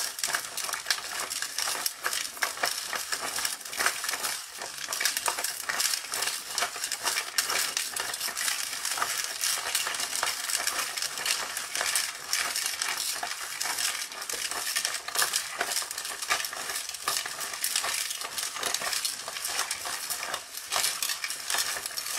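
Hand-cranked drum of a 1994 TYCO Doctor Dreadful Ice Scream Machine turning, with ice and rock salt rattling and grinding inside: a loud, continuous crackling clatter of many small clicks. The chilled drum is being turned to freeze the ice cream mixture onto it in layers.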